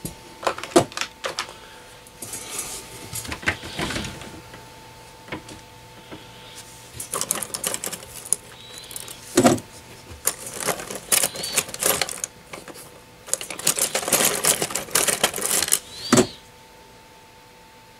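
Small metal tools and parts being handled on a workbench: irregular clicks, clinks and rattles in clusters, with a few short high squeaks. A faint steady electrical hum runs underneath.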